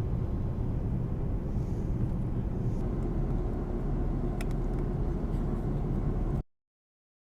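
Steady low rumble of airliner cabin noise, engines and rushing air heard from inside the cabin, stopping abruptly about six seconds in.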